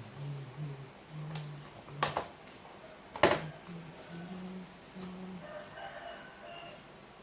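Two sharp clicks of laptop parts being handled during a hard-disk swap, about two and three seconds in. Near the end a rooster crows faintly.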